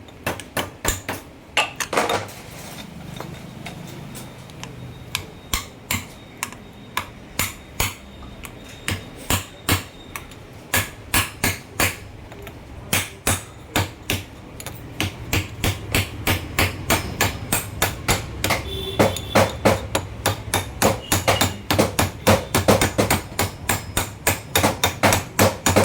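Repeated hammer blows on metal, driving an oil seal into a truck differential housing. Dozens of sharp knocks, coming faster and louder in the second half, over a low steady hum.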